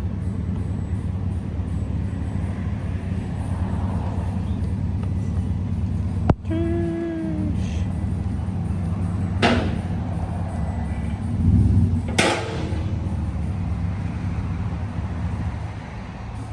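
A vehicle engine running with a steady low rumble. A sharp click about six seconds in is followed by a brief, slightly falling tone, and two sharp knocks come later.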